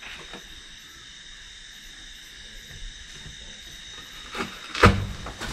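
Night insects, crickets, chirping steadily and faintly in the background. Near the end come two loud, sudden thuds, about half a second apart.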